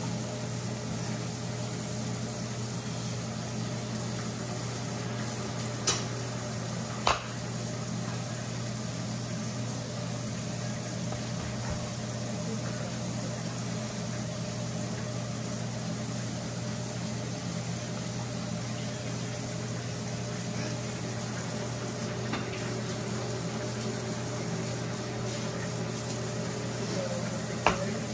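A long sushi knife slicing through a plastic-wrapped sushi roll, knocking sharply on a plastic cutting board three times: twice about six and seven seconds in and once near the end. A steady low hum like a fan runs underneath.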